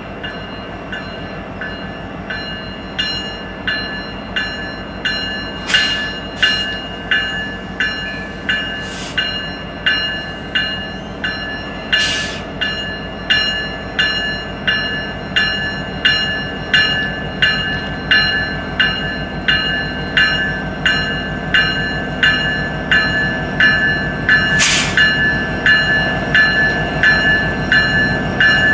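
Grade-crossing warning bell ringing in a steady rhythm, about one and a half strikes a second, starting a few seconds in. Under it, the diesel rumble of an approaching Norfolk Southern freight train led by an EMD SD70ACe locomotive grows louder. A few short hissing bursts are heard along the way.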